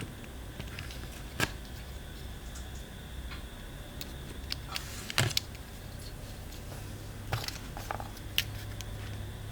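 Handling of a small plastic mini air conditioner: a few sharp clicks and knocks, five in all, over a low steady hum that grows a little stronger about two-thirds of the way in.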